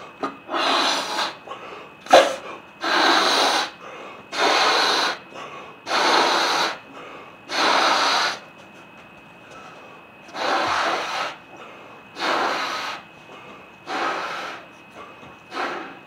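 A balloon being blown up by mouth: nine hard, breathy blows of air into its neck, each under a second long, with short pauses for breath between them. One brief sharp sound about two seconds in.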